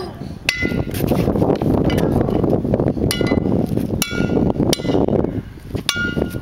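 Metal fire hydrant being struck repeatedly with a small hand-held toy, giving a series of sharp, ringing metallic clinks, irregularly spaced about a second apart.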